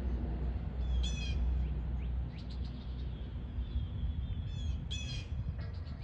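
Birds calling: a harsh call about a second in and another, doubled, near five seconds, with faint thin chirps between, over a steady low rumble.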